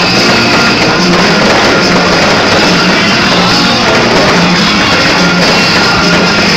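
Loud rock music with a steady beat.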